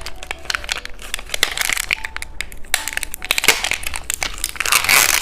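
Plastic wrapper of a dual-flavour cheese stick snack crinkling as it is handled and opened, a close run of crackles that grows busier and louder near the end.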